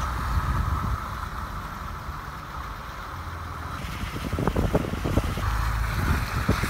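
A vehicle driving slowly on an icy road: a low engine and tyre rumble, with wind buffeting the phone's microphone held out of the window. The buffeting grows louder in the second half, with several short gusts.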